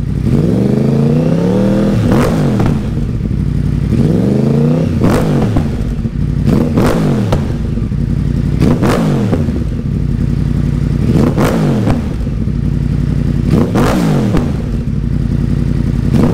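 2014 Yamaha R1's crossplane inline-four running with its throttle blipped about eight times. Each blip makes the revs climb and fall back, and sharp cracks from the exhaust come with several of them.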